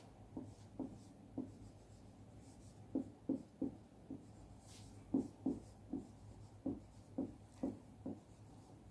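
Faint handwriting sounds: about a dozen short, separate pen or chalk strokes in small groups.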